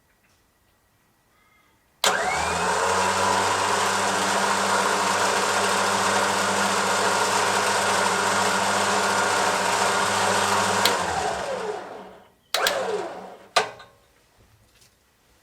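4WD vehicle's electric winch motor starting with a sharp click and running steadily for about nine seconds as it winds the cable in, then winding down. A short final burst with a falling pitch and a sharp click follow as it stops.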